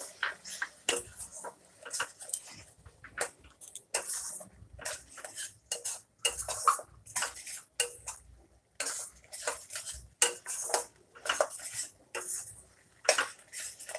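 Flat metal spatula scraping and clinking against a stainless steel kadai in quick, irregular strokes, stirring a thick spice paste as it is fried (the koshano stage of cooking the masala).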